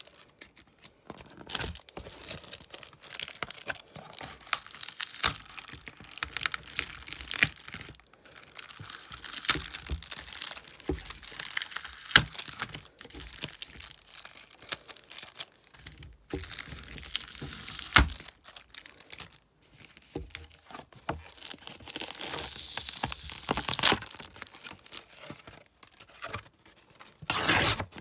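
Match Attax trading-card packets being torn open and their wrappers crinkled, with the cards handled: a busy run of sharp crackles, rips and rustles, with louder flurries now and then.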